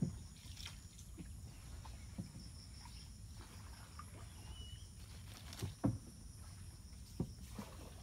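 Small boat paddled along a still canal: a few irregular knocks and splashes of the paddle against the hull and water, the strongest a little before the end, over a steady low rumble.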